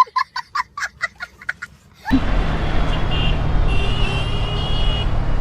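A rapid run of short, high beeping pips for about two seconds. Then the steady wind and engine noise of riding a motorcycle in traffic, with a high wavering tone held for about two seconds midway.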